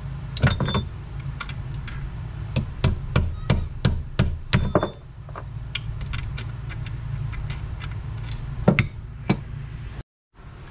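Ball-peen hammer tapping metal-on-metal on a steel shaft in a T-90 transmission's cast-iron case, driving out the retainer plate that holds the reverse idler gear. It is a run of sharp taps, coming in quick clusters for about five seconds and then fewer and further apart.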